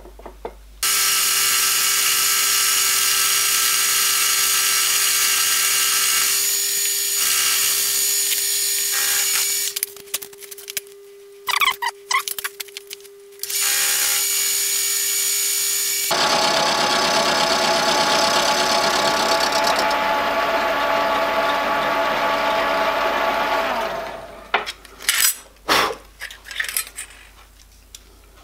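Milling machine with an end mill cutting a step into a small metal bracket held in a machine vise, a steady pitched running sound. It stops with a few clicks, starts again, then goes on with a changed sound until it stops about 24 seconds in, followed by a few sharp clinks.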